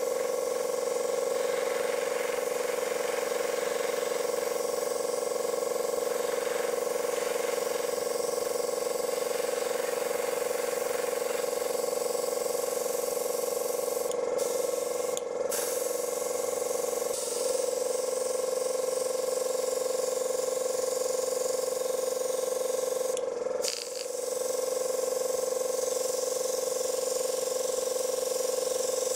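Airbrush hissing steadily as paint is sprayed, over the continuous hum of its compressor. The air hiss cuts out briefly twice around the middle, and the whole sound dips for a moment later on.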